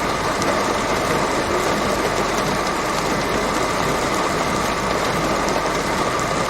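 Steady engine and cabin noise of a vehicle, heard from inside it, with a constant faint high tone and no change throughout.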